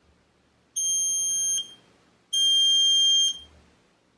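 Small buzzer driven by a micro:bit giving two steady, high-pitched beeps about a second long each, with a short gap between. Each beep sounds when the wire dipped into the glass of water completes the water-level circuit between pin 0 and ground.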